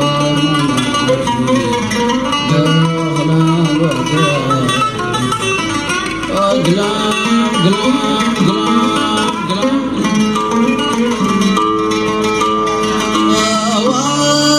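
An oud playing an instrumental melodic passage, plucked notes over held tones.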